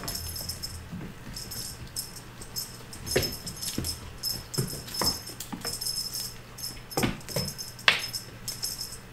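A small bell jingles in repeated shakes, as on a cat toy being swung and chased by two kittens. Several short sharp sweeping sounds come in between.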